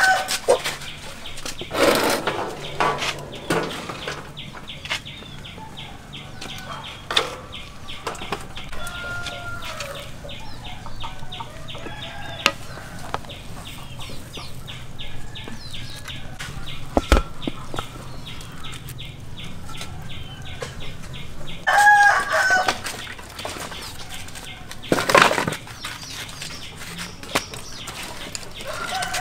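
Farmyard chickens clucking, with a loud call about 22 seconds in, and a few sharp knocks and clatters.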